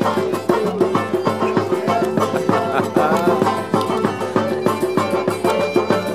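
Upbeat instrumental music with a quick, steady percussion beat under a melody.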